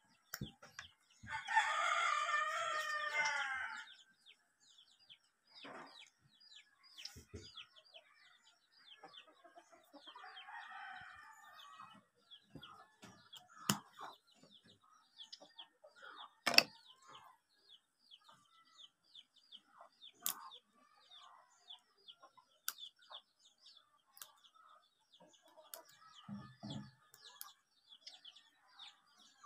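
A rooster crows once, loud, about a second in, and a fainter second crow follows about ten seconds in. Small birds chirp faintly throughout, with a few sharp clicks.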